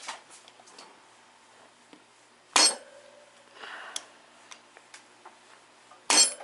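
Two rubber-mallet strikes about three and a half seconds apart on a half-inch extension and socket set on a valve spring retainer of a 12-valve VR6 cylinder head; each blow rings briefly in the metal. The keepers do not release, and the valve spring stays in place.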